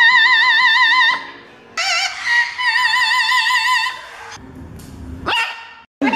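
A parrot singing in an opera-like warble. It holds long notes with a fast wobble in pitch, in two phrases in the first half, then starts another near the end.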